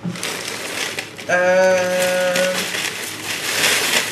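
A person's voice holding one steady note for about a second and a half. Near the end comes a rustling hiss of cornflakes being poured into a granite mortar.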